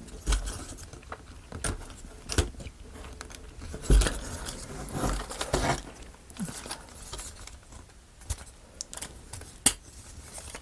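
Laser-cut plywood parts of a wooden model kit being handled and fitted together by hand: scattered clicks and taps, a louder knock about four seconds in, and some wood rubbing on wood.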